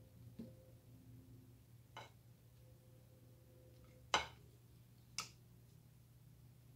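Vegetable peeler shaving a soft bar of recycled soap: four short scrapes, the loudest about four seconds in, over a faint steady hum.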